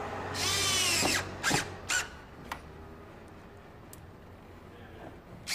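Cordless electric screwdriver driving a Phillips-head screw into a door trim panel: one run of just under a second, its motor whine dropping in pitch as the screw tightens, then a few short bursts of the motor.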